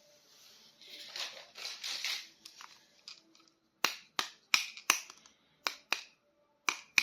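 Plastic toy packaging being handled: soft rustling for the first few seconds, then a run of about nine sharp, irregular clicks and snaps.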